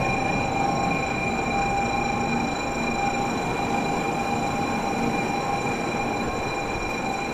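Shinkansen train pulling out along the platform: a steady rush of running noise with a high, even whine that slowly fades as it moves away.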